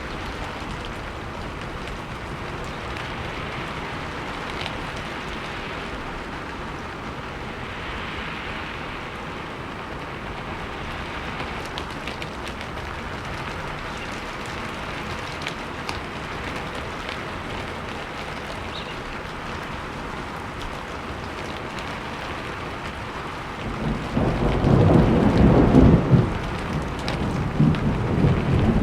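Steady rain falling, with a loud low rumble of thunder rolling in near the end.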